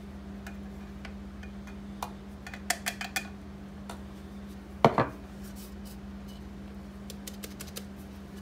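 Light clinks and taps as an electric coffee grinder is knocked against a glass jar to shake out ground dried hot-pepper powder: a few quick taps around three seconds in and the loudest knock about five seconds in. A box fan hums steadily underneath.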